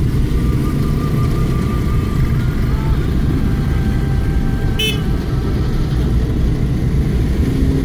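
Road traffic heard from a moving vehicle: a steady low rumble of engines and tyres, with a short horn toot about five seconds in.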